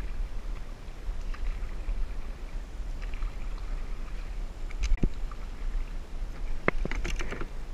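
Kayak paddling: paddle blades dipping and pulling through calm water with soft splashes, over a steady low rumble. A sharp knock about five seconds in and a few more clicks and knocks near the end, as of the paddle striking or being set on the kayak's plastic hull.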